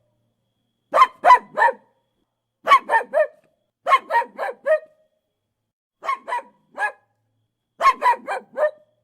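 A duck quacking in quick runs of three or four short quacks, with pauses of about a second between runs.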